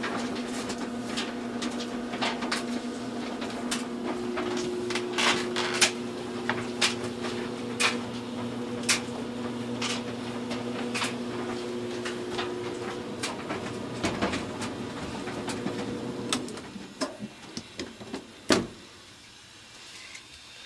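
Clothes dryer running, a steady motor hum with scattered clicks. About three-quarters of the way through the hum stops, followed by a few clicks and one sharp knock.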